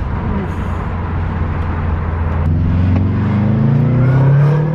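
Subaru WRX STI's turbocharged flat-four boxer engine running through a new Invidia downpipe and XForce cat-back exhaust. The note holds low at first, climbs steadily in pitch from about halfway as the car accelerates, and falls away at the end.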